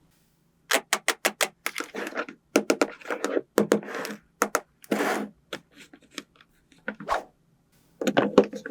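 Small plastic toy pieces clicking and tapping against each other in quick runs, with a brief rustle about five seconds in.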